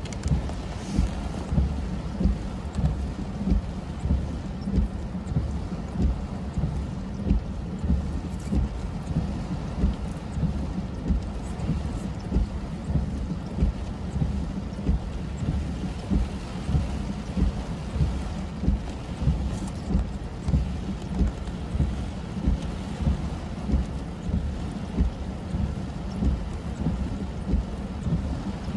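Rain drumming on a car's roof and windshield, heard from inside the cabin as a steady low rumble. The windshield wipers sweep through it, with a regular beat about once a second.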